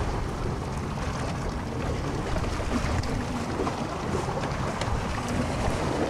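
Wind buffeting the microphone on a small boat in choppy open water, a steady low rumble with the wash of waves against the hull.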